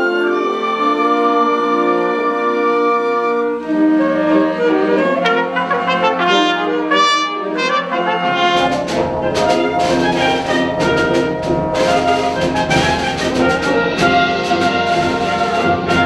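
A symphonic wind band playing live. Held chords give way to quicker moving notes about four seconds in, and about halfway through the full band comes in with deep low notes and percussion strikes.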